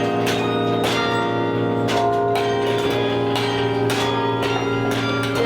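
Carillon bells playing a slow melody, a new bell struck about every half second, each one ringing on under the next.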